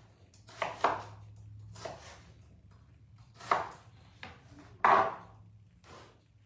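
Kitchen knife slicing cucumbers on a cutting board: five or six separate chops, irregularly spaced about a second apart.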